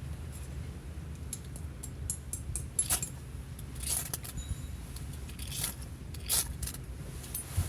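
Scattered light clinks and clicks of small metal items being handled, with a few louder ones through the middle, over a low steady rumble.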